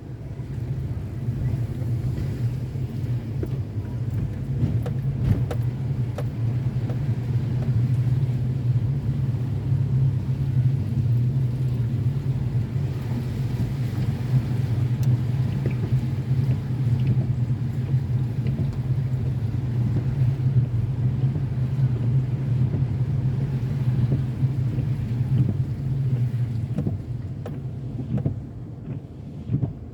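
Car driving along, with a steady low hum of engine and road noise that eases off near the end.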